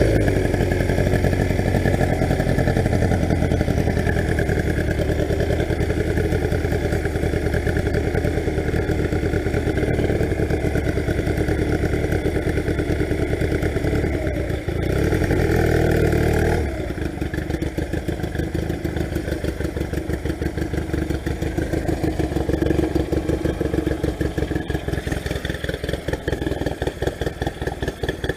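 1982 Honda motorcycle engine running steadily under way; about 17 seconds in it drops to lower revs, the separate firing pulses slower and quieter as the bike slows.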